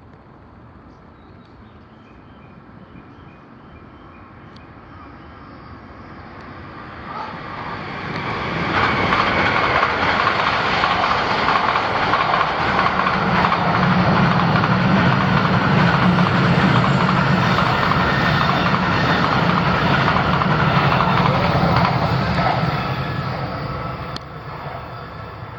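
A train passing through the station: its noise builds over several seconds, stays loud for about fourteen seconds, then fades near the end.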